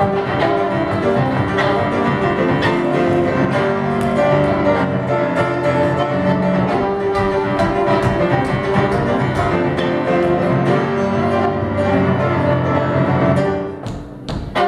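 Fiddle and grand piano playing an instrumental passage together; the music dips briefly near the end.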